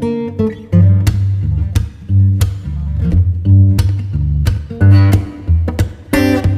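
Background music: plucked guitar notes over a bass line, in a steady rhythm.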